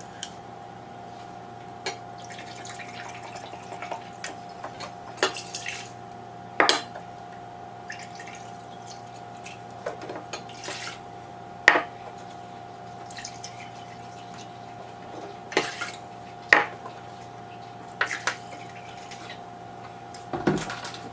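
Distilled water poured from a plastic jug into a glass measuring cup, with drips and several separate clinks and knocks of glass, plastic and a pot on the counter, over a steady hum.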